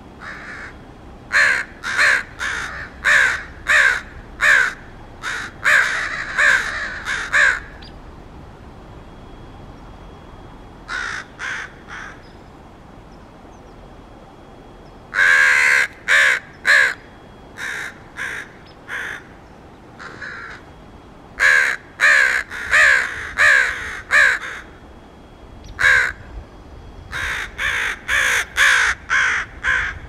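Crows cawing in runs of short, harsh caws about two a second, with pauses of a few seconds between runs. The cawing turned out to be a warning: the crows dive-bombed the person filming soon after.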